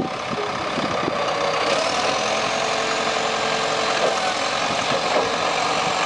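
Case 780B backhoe loader's diesel engine running steadily while the front loader bucket is raised over a debris pile and tipped.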